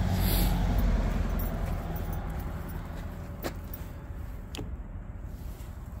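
Low rumble of a motor vehicle's engine, loudest at first and slowly fading, with two sharp clicks in the middle.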